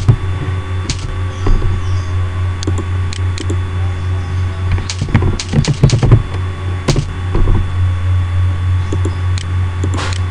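Computer keyboard keystrokes and mouse clicks, irregular and scattered, over a steady low electrical hum.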